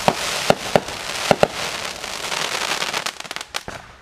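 Fireworks: a shell bursting into crackling stars, with a dense hiss of crackle and several sharp pops, the crackle thinning into scattered snaps near the end.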